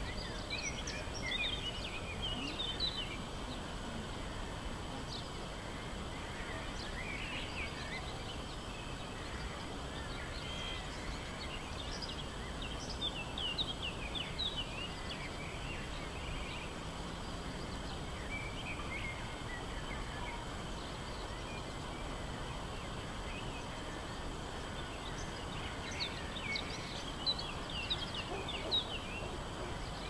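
Outdoor town ambience: a steady low background hum with small birds chirping and twittering in quick, high notes, in spells near the start, through the middle and again near the end.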